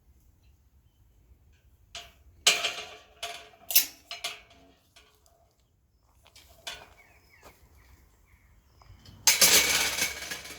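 Footsteps on a woodland path: irregular crunching clicks and knocks, then a louder rustling rush lasting about a second near the end.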